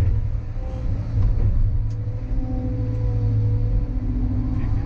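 Caterpillar 320 excavator's diesel engine running steadily, heard from inside the cab while the bucket digs into mud. A faint whine wavers in pitch over it as the boom and bucket move.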